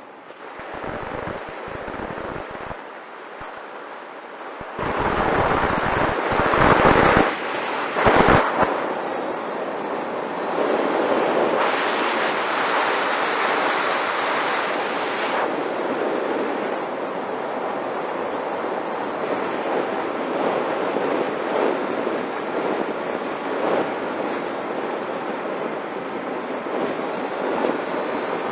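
Wind rushing over the onboard camera's microphone of a Mini Talon FPV wing in flight, rising in loud gusts about five to eight seconds in and again around twelve to fifteen seconds, with a faint steady tone from the electric motor and propeller underneath.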